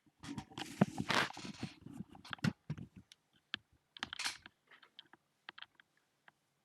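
Handling noise from a person getting up and moving about: rustling and a quick run of light clicks and knocks, with one more rustle about four seconds in, then scattered faint clicks thinning out.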